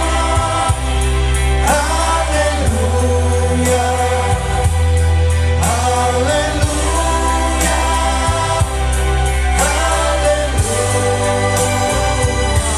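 Live band playing a song: a woman singing into a microphone over two Yamaha electronic keyboards, with a steady bass line that changes note every couple of seconds and a regular beat.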